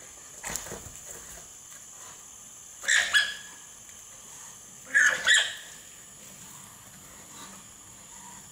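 Male alpacas screaming while fighting: short, shrill cries, one about three seconds in and a quick pair about five seconds in.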